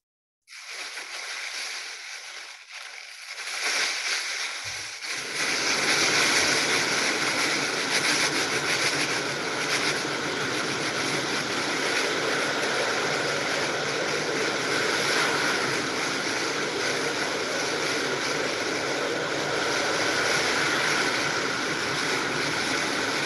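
Thin plastic shopping bag crinkling and rustling, a dense crackle that gets louder and fuller about five seconds in.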